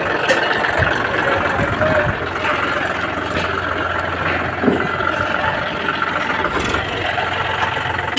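John Deere 5405 4x4 tractor's diesel engine running steadily.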